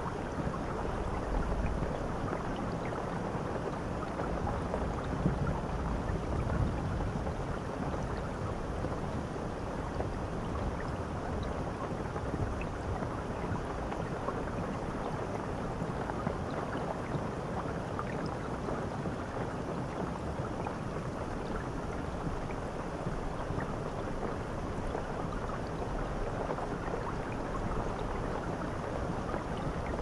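Shower head spraying water onto tiled walls and the floor of a bathtub: a steady, unbroken rush of falling water, mostly low in pitch.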